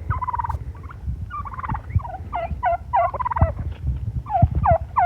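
Domestic turkeys gobbling over and over, rapid rattling calls overlapping one another.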